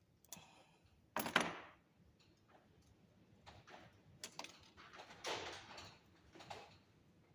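A few separate small clicks and scraping rustles of copper wire being bent and worked with pliers; the loudest scrape comes about a second in, with more around the middle and near the end.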